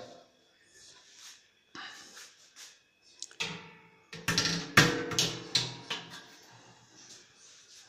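Knocks and clanks of the smoker's sheet-steel parts being handled during assembly, a few light clicks early on, then a louder run of clanks with brief metallic ringing about four to six seconds in.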